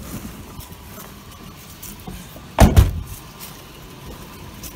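A truck door slammed shut once with a heavy thud, a little past halfway through.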